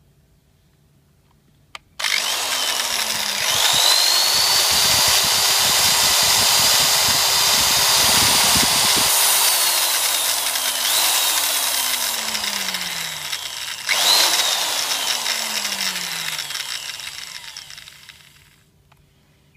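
Hitachi Koki corded electric drill test-run with no load: a click, then the motor whines up to full speed and holds there for about five seconds with a rattle. It is released and spins down, then is squeezed twice more in short bursts, each time speeding up and coasting down, before it stops.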